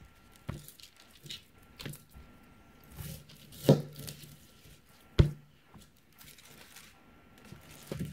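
A 9.5-inch Damascus steel chef's knife cuts through a whole pineapple and knocks against a cutting board. There are several sharp knocks, the loudest about five seconds in, with softer crunching and scraping of the rind between them.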